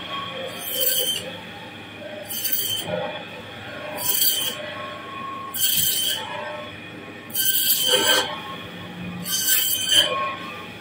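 Electric band saw running, its blade screeching through a large fish six times as each slice is pushed through, with the machine running steadily between cuts.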